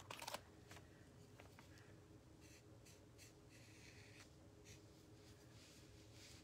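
Near silence: faint scratchy rustles of a brush-tip marker being drawn along the edge of a small wooden piece, over a faint steady hum, with a brief soft rustle at the very start.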